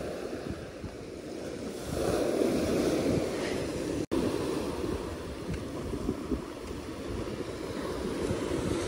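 Sea surf breaking and washing over a pebble beach, a steady rushing wash that swells louder about two seconds in, with wind buffeting the microphone.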